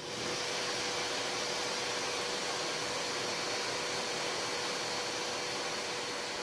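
Steady rushing hiss with a faint high whine and a lower hum running through it, unchanging throughout.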